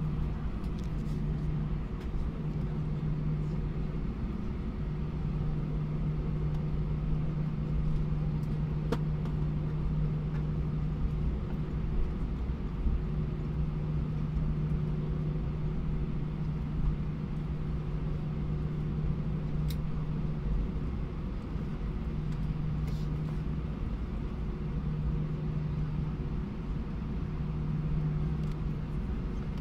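Airbus A319 cabin noise from a window seat: steady engine hum over a low rumble, with a low drone that drops out briefly every several seconds and a few faint clicks.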